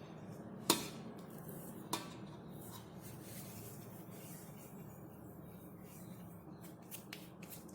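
Hands patting and handling soft bajra dough while shaping vadas: a few short soft taps and clicks, about a second in, about two seconds in and several near the end, over a faint steady low hum.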